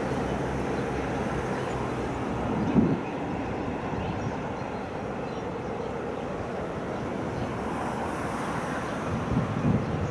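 Long freight train of covered wagons rolling steadily across a multi-arch river bridge, a continuous running noise of the wagons on the rails. A couple of low thumps, about three seconds in and again near the end.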